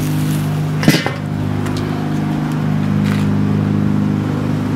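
Metal lid of a charcoal kettle grill set down over the grate with a single sharp clank about a second in, and a fainter click about three seconds in. Under it a steady low humming drone, like a motor running nearby.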